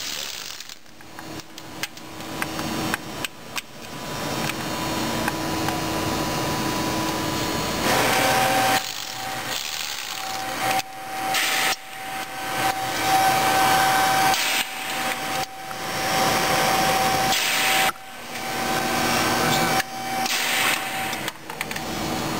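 Milwaukee M12 cordless ratchet's motor running in a series of short runs, a steady whine that stops and starts about ten times.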